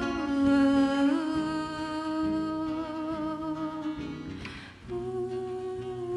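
Wordless singing or humming in long held notes over acoustic guitar, with a short break for breath a little past the middle.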